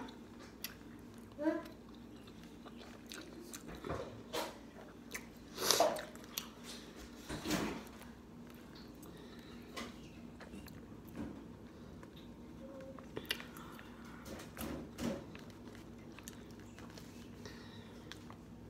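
Close-up eating: a soft mouthful of hamburger, rice and gravy being chewed, with scattered short clicks of a metal fork against a styrofoam container. The loudest of these comes about six seconds in and again about seven and a half seconds in.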